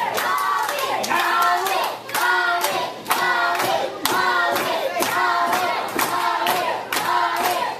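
Small crowd clapping in a steady rhythm, about two claps a second, with voices chanting along in time.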